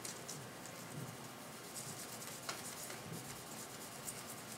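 Faint rubbing of a cloth rag on a wooden knife handle as oil is wiped on, with light scratchy handling noises and one sharper click about halfway through.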